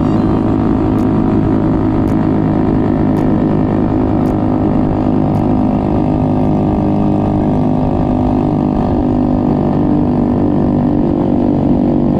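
Honda RS150R motorcycle's single-cylinder four-stroke engine running at steady revs while the bike cruises at an even speed, its pitch holding level.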